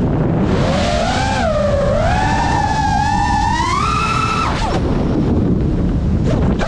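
FPV racing quadcopter's brushless motors whining, the pitch rising and falling with the throttle over a rushing noise bed, then dropping away abruptly as the throttle is cut for a flip.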